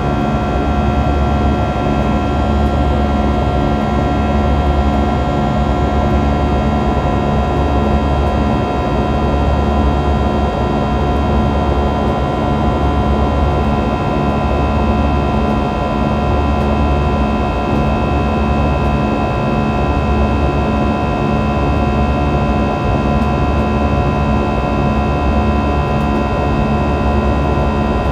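An Airbus A320's underwing turbofan engine, heard from inside the cabin during the climb after takeoff. It makes a steady, loud drone: a rumble underneath with several steady whining tones above it.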